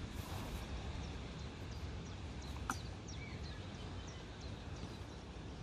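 Wind rumbling on the microphone, with birds chirping in short, high, downward-sweeping calls in the background. A single sharp click comes about two and a half seconds in.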